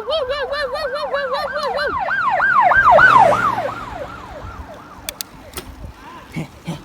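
Electronic police-style siren from a bike light/horn unit: a fast warbling tone that switches about two seconds in to a slower, wider yelp, swells, then fades away. A few faint clicks follow near the end.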